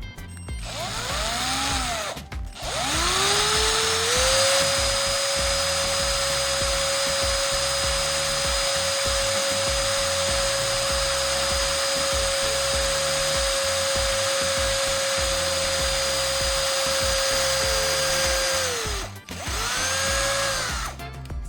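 Electric drill motor pulsed twice, then spun up and run at a steady high whine for about fourteen seconds before winding down, with one more short burst near the end. Background music plays underneath.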